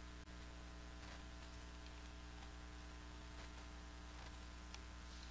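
Steady electrical mains hum with faint hiss, and a few faint ticks.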